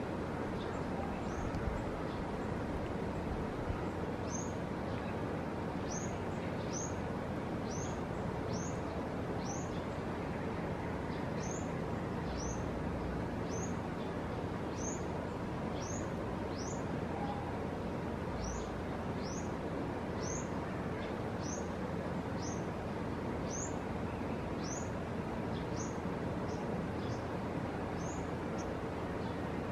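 A bird's high, thin chirp repeated about once a second, each note sliding down in pitch, over steady wind noise.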